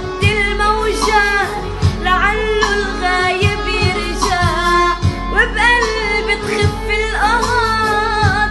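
A song with a woman's voice singing a bending, ornamented melody over a steady beat and sustained bass.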